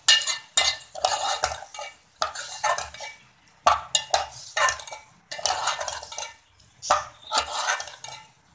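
Metal spoon scraping and stirring minced meat around a metal pot in quick, uneven strokes, metal rubbing on metal, as the keema is browned with ginger-garlic paste.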